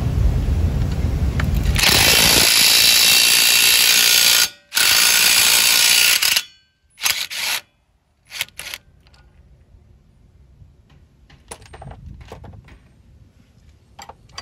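Impact wrench hammering on the large front axle nut in two long bursts of about two seconds each, then a few short bursts as the nut spins loose; faint clinks of handling follow.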